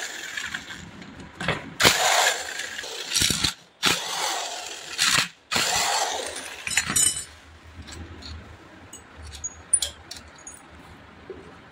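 Electric impact driver running in several short bursts, spinning out the bolts of a Yamaha R15 V2 clutch cover. After about seven seconds it stops, and a few light metallic clinks of bolts and tools follow.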